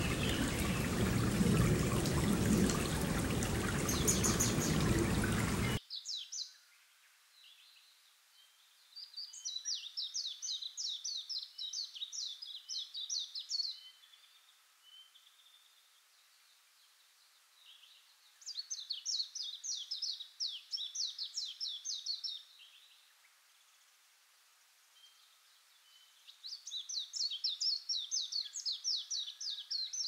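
Water running in a shallow stony stream, a steady rushing that cuts off suddenly about six seconds in. Then a songbird sings three phrases, each a rapid run of high notes lasting about four seconds, spaced several seconds apart.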